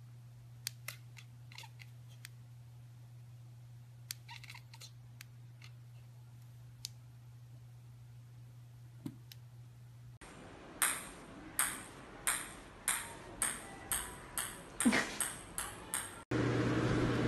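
A small orange ball bouncing on a hard tile floor: about a dozen sharp, ringing bounces coming ever closer together as it settles. Before that, a few faint clicks over a low hum.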